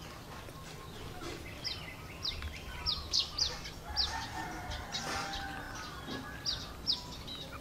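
Birds chirping: a run of short, high, falling chirps, roughly two a second, starting about a second and a half in, with some lower calls in the middle.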